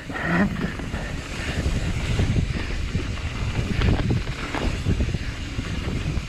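Wind buffeting the microphone over the steady rumble of a mountain bike rolling down a dirt trail, with a few brief knocks from the bike around the middle.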